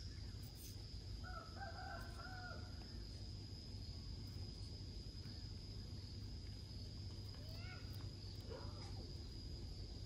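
A rooster crows faintly once, about a second in, over a steady high-pitched insect whine. A couple of short rising calls follow near the end.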